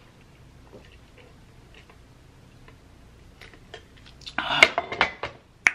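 Drinking through the straw of a lidded insulated tumbler: faint sips and small ticks, then a louder run of clicks with a short noisy rustle lasting about a second, and one sharp click near the end.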